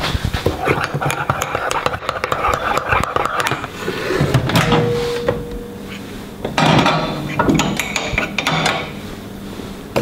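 A metal spoon clicking and clinking against a ceramic mug as it is stirred. This is followed by clatter as the mug is set into a microwave oven and the door is shut.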